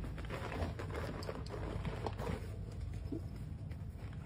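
Dogs shuffling and making small sounds on the minibus seats, with scattered light clicks and rustles over a steady low hum in the bus cabin.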